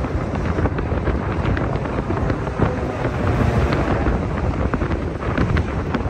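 Strong wind buffeting the microphone: a loud, unsteady rumble with scattered crackles.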